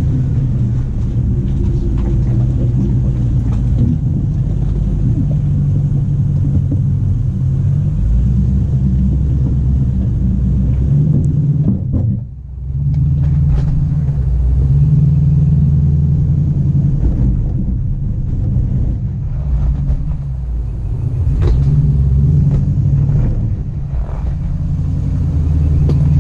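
Jeep Grand Cherokee WJ engine running while the vehicle is driven, a steady low rumble that rises and falls with the throttle, dipping briefly about halfway through.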